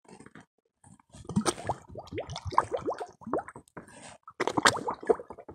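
A bottle being filled by holding it under river water: air escapes from its neck in a fast, irregular run of glugs and plops, starting about a second in.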